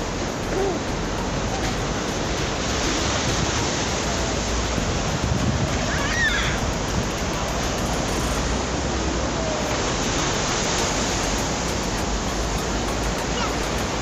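Steady rushing wash of sea surf on a beach, mixed with wind on the microphone. A small child gives a brief high vocal sound about six seconds in.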